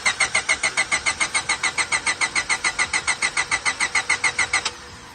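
Starter cranking the Honda Civic's D16Y8 four-cylinder, an even chugging of about eight to nine beats a second that stops suddenly near the end without the engine catching. It won't fire because the new injectors' plugs don't fit the car's harness, which the owner says were the wrong ones.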